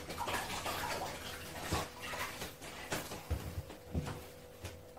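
Off-camera kitchen handling sounds: a hiss like running water, strongest in the first couple of seconds, and several sharp knocks or clatters.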